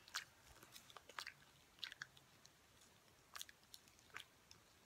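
Faint mouth clicks and smacks of a piece of chewing gum being chewed, a handful at irregular intervals.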